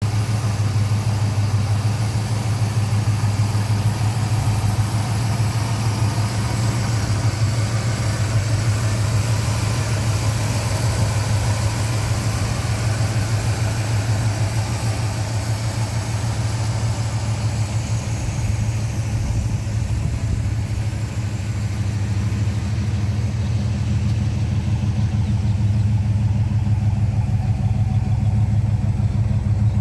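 1970 Pontiac GTO's 455 cubic-inch V8 idling steadily, with an even pulse from the firing. Near the end the sound comes from the tailpipes rather than the engine bay, and the low exhaust note is stronger.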